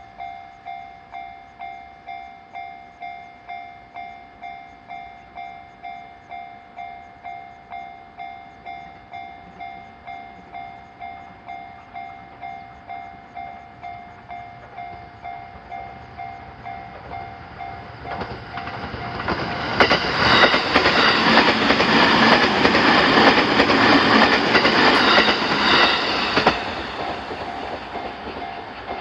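Japanese railroad crossing's electronic warning bell ringing in a steady repeating ding, about one and a half strikes a second. About eighteen seconds in, a train passes through the crossing, loud, with wheels clattering over the rail joints for about eight seconds. The train then cuts off fairly suddenly and fades, while the bell keeps ringing.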